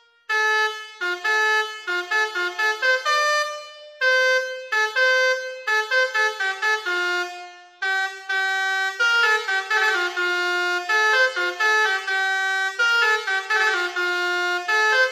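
Basuri V.4 multi-tone bus horn playing a melody of short notes that change pitch. The tune stops briefly about four seconds in and again about eight seconds in.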